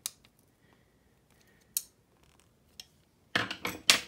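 Metal clinks and clicks from a motorcycle rear shock absorber's coil spring and a metal tool being handled over a metal toolbox: a couple of single clicks, then a cluster of louder clinks near the end.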